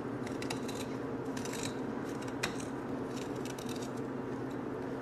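Metal spoon scraping the skin off a piece of fresh ginger root in short, irregular strokes, with one light click about two and a half seconds in, over a steady low hum.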